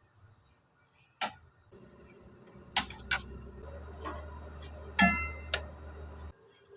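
Sharp metallic clicks and taps, the loudest about five seconds in ringing briefly like struck metal, over a steady low hum that cuts off abruptly near the end.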